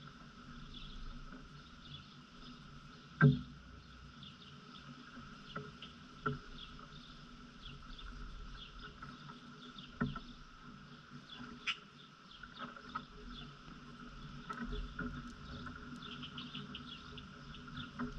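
A squirrel eating seed and nuts close to the microphone: scattered sharp clicks and cracks, one loud click about three seconds in, over faint high chirps and a steady background hum.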